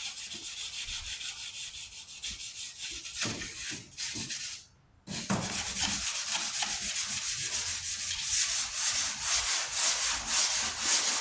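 Hand sanding of a painted steel tailgate panel with fine 1200-grit sandpaper, in rapid back-and-forth strokes. The sanding breaks off briefly about four and a half seconds in, then resumes louder.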